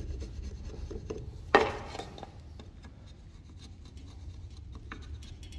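Wood chisel pushed by hand to pare a groove in a wooden board: quiet scraping and shaving of wood with small ticks, and one louder sudden sound about a second and a half in.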